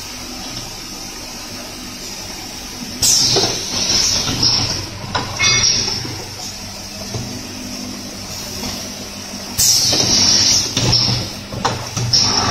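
Automatic cap assembly machine running with a steady mechanical hum, broken by sharp hissing blasts from its compressed-air and vacuum pneumatics. The blasts come about three seconds in, again around four to five seconds, near ten seconds and once more near the end.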